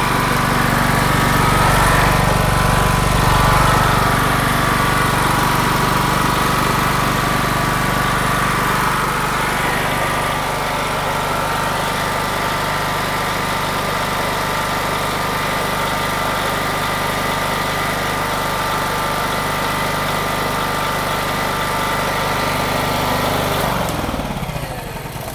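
Rebuilt Honda 6500 generator's engine running steadily with no load on its first run after reassembly. Near the end it is switched off and winds down, its pitch and level falling away.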